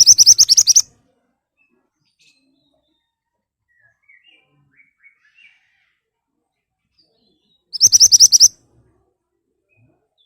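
Mantenan (pied bushchat) giving loud, sharp calls: two short bursts of rapid high notes, one at the start and another about eight seconds later. A few faint, softer chirps come in between.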